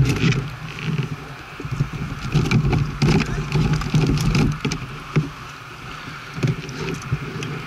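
Kayak paddle strokes: the blade dipping and splashing in the water, a splash every half second to a second in an uneven rhythm.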